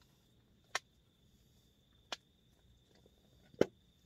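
Three short, sharp clicks or knocks, spaced more than a second apart and the last the loudest, from handling a small alcohol stove and its gear while it is being refilled and relit.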